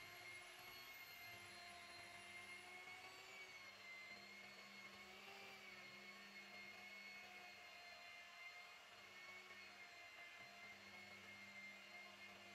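Faint, steady whine of an electric rotary polisher running with its pad on windshield glass. The pitch wavers slightly as the pad is pressed and moved.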